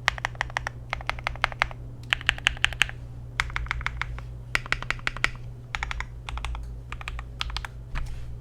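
Typing on a Glorious GMMK Pro custom mechanical keyboard with an FR4 plate, C3 Tangerine linear switches and a tape mod: fast runs of keystrokes in bursts of about a second with short pauses between, over a faint steady hum.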